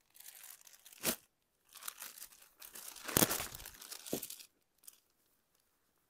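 Plastic packaging crinkling and rustling as packed sarees are handled, with a sharp click about a second in and the loudest rustle around three seconds in.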